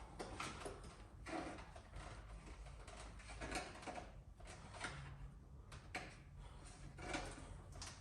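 Faint clicks, light knocks and rustling of hands working a clutch cable through a motorcycle's frame, over a low steady hum.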